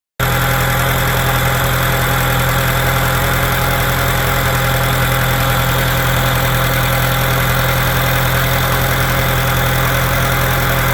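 Freshly rebuilt, fresh-water-cooled Atomic 4 four-cylinder gasoline marine inboard engine idling steadily and smoothly. It cuts in suddenly right at the start and runs evenly throughout.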